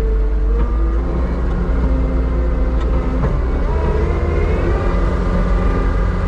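Heavy beet-harvest machinery running: a steady deep rumble with several whining tones that shift up and down in pitch.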